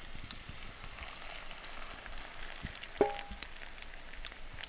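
Hot water poured from a steaming stainless steel pot onto instant noodles in a bowl, with the campfire's embers crackling. A single metallic clink rings out about three seconds in.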